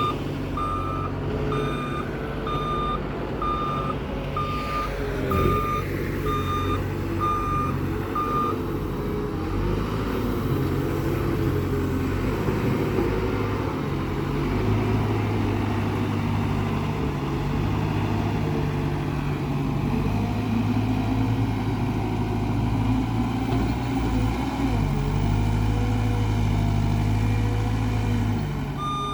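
Heavy diesel construction machine running under load, its engine pitch shifting. For the first eight seconds or so its reversing alarm beeps steadily, about one and a half beeps a second, then stops; it starts beeping again right at the end.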